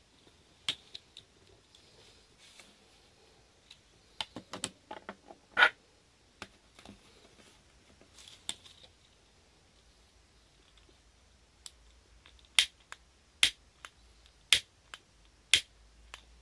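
Scattered clicks and light knocks as the glass cap of an alcohol lamp is lifted off and set down on a steel tray, then four sharp clicks about a second apart as a long-nosed lighter is sparked to light the lamp's wick.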